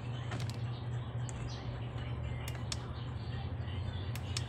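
Sharp plastic clicks of the TV's control-panel push buttons being pressed, a single one near the start and pairs about two and a half and four seconds in, over a steady low hum.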